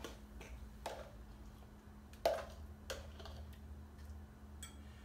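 A few light clicks and taps of a fork against a plastic container and a plate as guacamole and broccoli salad is scraped out onto the plate, the sharpest tap a little over two seconds in.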